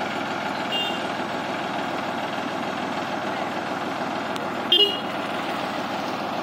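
Combine harvester's engine running steadily in a muddy field. There is a faint short toot about a second in and a louder, brief toot near five seconds.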